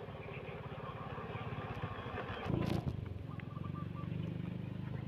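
A motor vehicle's engine running steadily, with a brief louder noise about two and a half seconds in.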